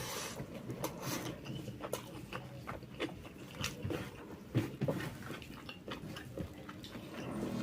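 Close-miked eating sounds: a person chewing a mouthful of jackfruit curry, with frequent wet mouth clicks and smacks.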